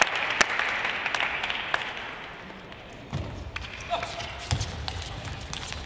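Arena crowd at a table tennis match: applause dies away over the first two or three seconds, leaving a low murmur of voices with scattered sharp clicks and a few dull thumps.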